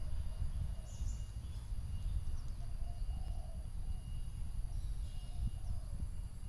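Outdoor garden ambience: a steady low rumble on the microphone, with faint scattered bird chirps and a thin, steady high-pitched drone.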